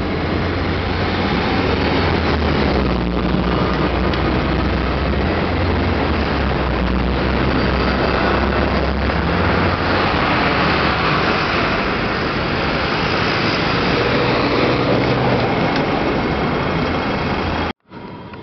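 Busy city street traffic: a steady wash of road noise from buses and cars with a low engine drone underneath. Near the end it cuts off suddenly to a much quieter background.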